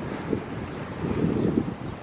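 Wind rumbling against the camera's microphone in a fairly light spell, an uneven low rumble with no engine or other distinct sound in it.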